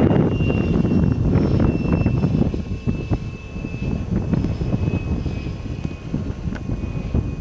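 Electric ducted fan of a 90 mm EDF model F-16 in flight, a thin high whine that drifts slowly lower in pitch and fades. Gusty wind noise on the microphone sits underneath.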